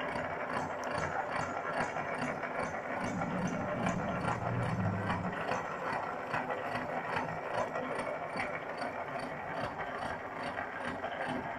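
Horizontal milling machine running, its multi-point disc cutter cutting a tooth space in a spur gear blank, with a regular rhythmic clatter of the machine.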